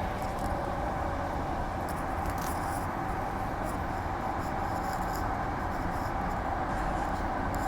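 Interior running noise of a Transperth Walkers A-series electric multiple unit in motion: a steady rumble under a faint, steady tone.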